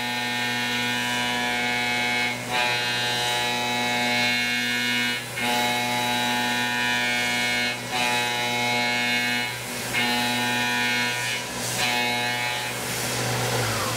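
Tormach 1100M CNC mill's spindle and carbide insert cutter running at 7,500 RPM in a full-depth adaptive roughing cut: a steady pitched cutting whine that drops out briefly every two to three seconds as the tool moves between passes, over a constant hiss from the fog-buster mist-coolant nozzles. The whine stops just before the end.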